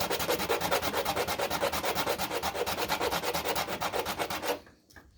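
Rapid back-and-forth abrasive rubbing on an old screwdriver that is being reworked, about eight strokes a second, as in hand sanding or filing. It stops about four and a half seconds in.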